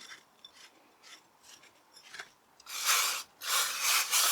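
Faint handling of small metal clutch parts, then an aerosol cleaner spraying in two loud hissing bursts, a short one and a longer one, as the motorcycle clutch parts are cleaned.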